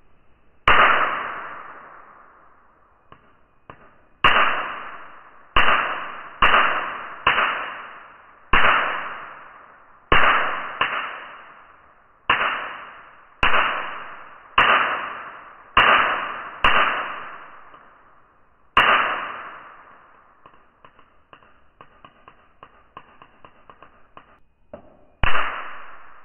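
Black Flag handheld bug zapper's electrified grid cracking as flies hit it: about fifteen sharp cracks at uneven intervals, each dying away over a second or two, with faint ticking between the last two.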